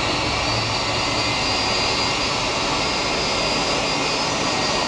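Boeing 757-200's jet engines running on the ground, a steady whine over a broad even noise.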